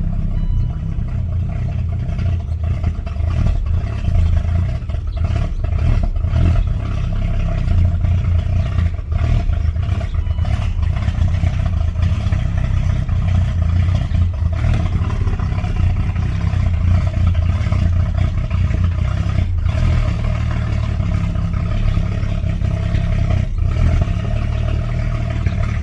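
BMW E38 750iL V12 engine running just after starting following long neglect, with irregular pops from the exhaust. The owner judges one cylinder bank to be running rich and the other lean.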